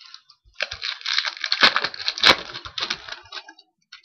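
Foil wrapper of a hockey card pack crinkling and tearing open, a dense crackle with two sharper snaps near the middle.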